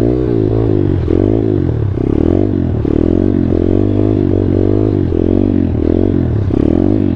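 Small single-cylinder four-stroke engine of a 140cc Thumpstar pit bike, revved hard and let off again and again, its pitch rising and falling in quick succession as the throttle is worked.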